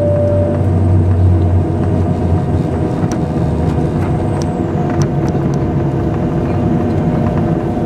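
Cabin noise of a Boeing 737-800 rolling out on the runway after landing, heard from a seat over the wing: steady engine and rolling noise. A deep hum stops about two and a half seconds in, and there are a few sharp clicks near the middle.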